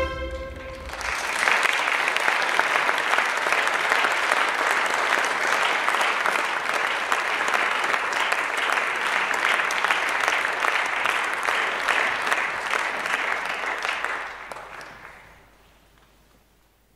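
Audience applauding. It starts about a second in, as the music ends, holds steady, and dies away near the end.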